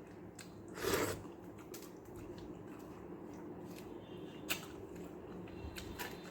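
A person eating rice and sambar: chewing with short wet mouth clicks, and one louder noisy sound about a second in.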